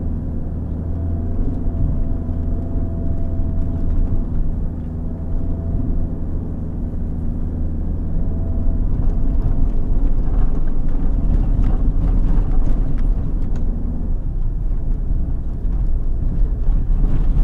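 Four-wheel drive's engine running under load as it pushes slowly through soft, deep sand, a steady drone. From about halfway on, knocks and rattles from the vehicle riding over the rough track join it.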